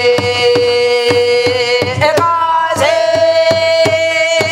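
A woman singing a Korean Namdo folk song, holding two long notes, the second a step higher from about two seconds in, with a wavering, vibrato-like quality near the end. She is accompanied by quick, even strokes on a buk barrel drum.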